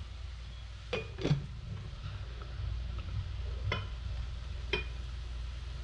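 A few light clinks and knocks of a glass blender jar being handled while blended green sauce is poured into a bowl, heard over a low steady hum.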